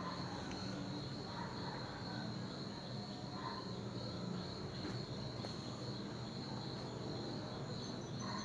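Crickets trilling steadily, a faint continuous high chirr over a low background rumble.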